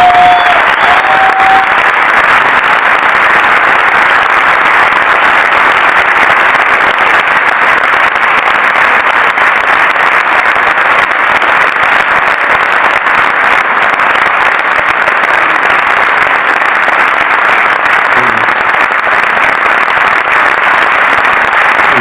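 A large audience applauding, a dense, steady clapping that holds at the same loudness throughout.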